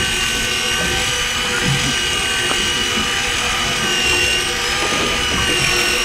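A motor running steadily: an even high whine over a low rumble.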